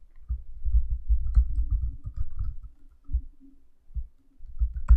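Typing on a computer keyboard: a quick run of dull keystroke thumps with a few sharper clicks, thinning out and pausing for about half a second a little past three seconds in, then picking up again near the end.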